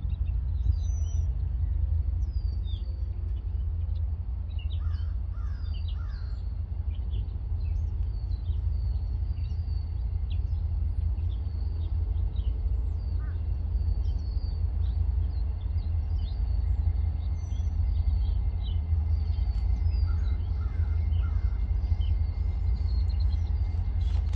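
Small birds chirping and calling again and again over a steady low rumble. A faint steady high tone joins about two-thirds of the way through.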